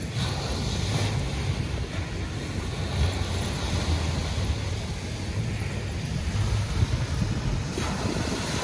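Ocean surf washing onto a sandy beach, with wind buffeting the microphone in a steady low rumble.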